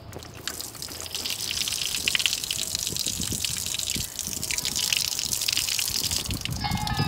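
Water running from a wall tap, a steady splashing gush that builds over the first second or two after the tap is opened. Near the end the stream begins falling into a metal pot, adding a ringing tone to the splash.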